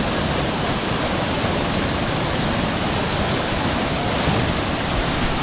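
Waterfall rushing steadily over a rock slide, a loud even roar of water with no break.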